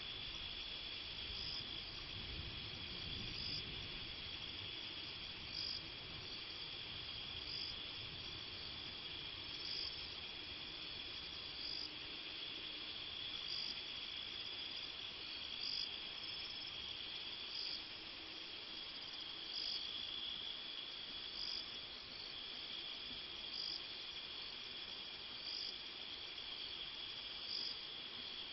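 Night insects calling: a steady high cricket trill, with a sharper, higher chirp repeating about every two seconds.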